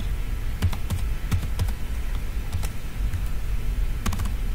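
Keystrokes on a computer keyboard as a password is typed: irregular clicks with a quick run of keys near the end, over a steady low hum.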